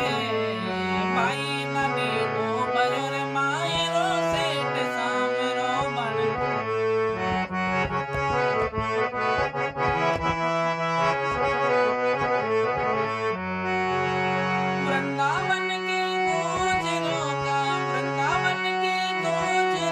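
Harmonium playing an instrumental passage of a devotional bhajan melody, with sustained reedy notes over held low notes and no drum accompaniment.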